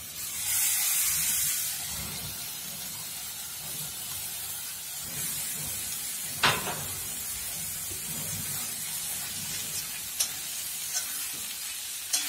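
Cubes of raw papaya dropped into hot coconut oil with crushed shallots, garlic and dried chillies hiss loudly for about the first two seconds, then settle into a steady frying sizzle. There is one sharp knock about six seconds in, and a few light clicks near the end as a steel spoon starts stirring.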